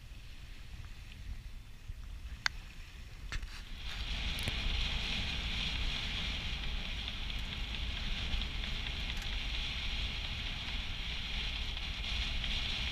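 Wind and rushing water on a Sigma 33 sailing yacht under way in strong wind, with a couple of sharp clicks in the first few seconds. About four seconds in it turns suddenly louder and hissier, and stays steady after that.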